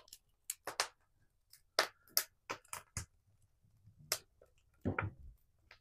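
Wood fire crackling in an open wood stove: irregular sharp pops and snaps, a dozen or so spread unevenly.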